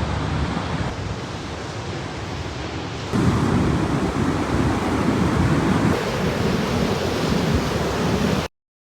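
Ocean surf washing onto the beach, with wind buffeting the microphone. The wind gets louder about three seconds in, and the sound cuts off suddenly near the end.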